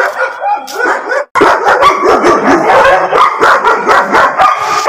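A pack of dogs barking and yipping over one another, loud and continuous, with a brief break about a second in.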